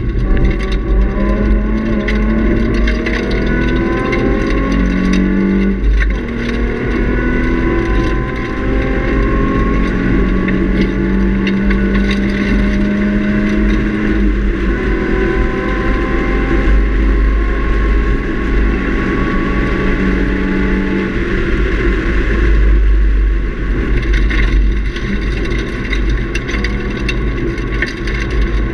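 Nissan 350Z's 3.5-litre V6, fitted with a Nismo cat-back exhaust, heard from inside the cabin under hard track driving: its pitch climbs and breaks off again and again as the car accelerates and shifts. A constant low rumble of road and wind noise sits underneath.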